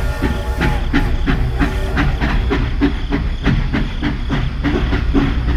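Steam-train chuffing with hiss, an even beat of about four to five strokes a second over a low steady hum, as played for a toy steam locomotive running on its track.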